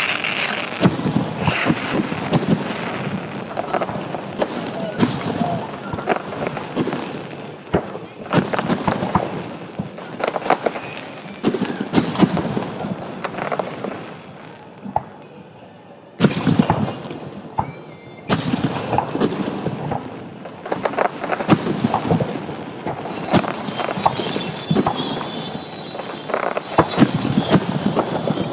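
Aerial fireworks display: a dense, fast run of bangs, booms and crackles, easing off for a couple of seconds just past the middle before bursting back in.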